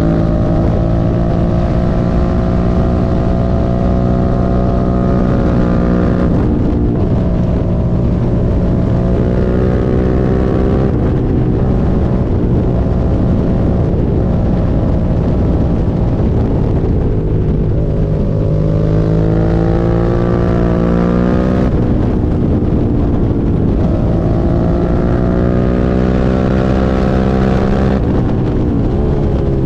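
Suzuki SV650's 90-degree V-twin engine under way, its pitch climbing and then dropping sharply at each of four gear changes, with wind noise. The bike has a misfire, according to its owner.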